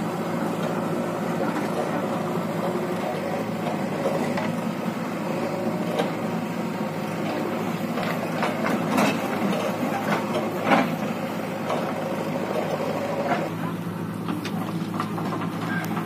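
Diesel engines of a JCB 3DX backhoe loader and a Mahindra Arjun 555 tractor running steadily, with a few clanks and thuds around the middle as the loader bucket dumps soil into the tractor's trolley.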